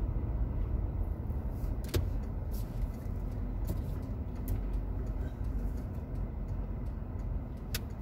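Low, steady rumble of a car driving slowly, heard from inside the cabin, with a couple of sharp clicks, one about two seconds in and one near the end.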